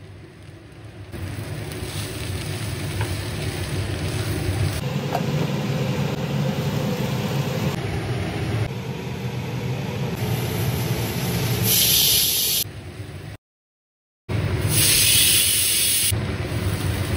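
Green beans and potatoes sizzling in oil in a nonstick wok, a steady hiss in short edited pieces. The sizzle breaks off for about a second late on, and is louder and sharper just before and after that gap.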